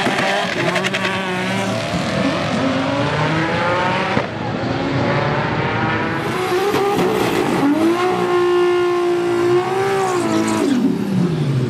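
A drag car accelerates hard away from the line, its engine pitch climbing in steps through the gear changes. After a cut, a Toyota Supra does a burnout: the engine rises to steady high revs with the rear tyres spinning, and the revs drop near the end.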